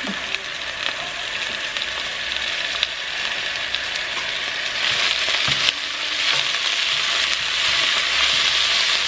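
Fried onion, garlic and chopped cilantro sizzling in hot avocado oil in a pot while a wooden spoon stirs them. The sizzle is steady, growing louder about halfway through, with a couple of sharp clicks.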